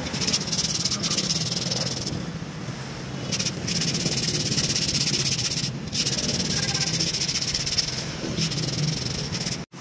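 Aerosol brake cleaner spraying in long hissing bursts that start and stop abruptly: about two seconds, a pause of over a second, then a longer spray broken once briefly.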